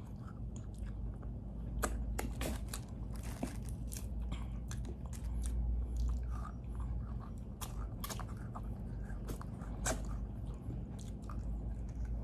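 A person chewing and biting meat close to the microphone: irregular wet smacks and small crunches.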